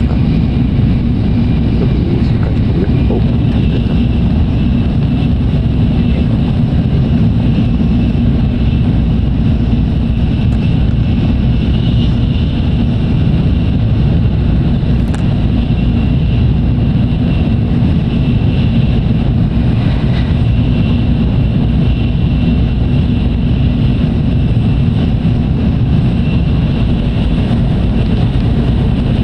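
Tokaido Shinkansen train running at speed, heard inside the passenger car: a steady, loud rumble of wheels on track, with a fainter high hiss above it.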